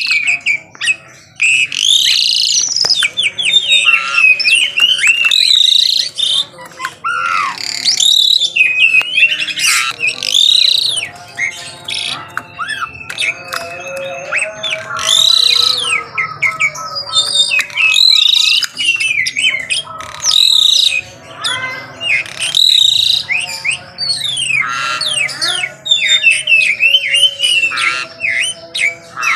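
Pied starling (jalak suren) singing vigorously and without pause: a rapid, varied run of loud whistles, rising and falling glides and harsh chattering notes.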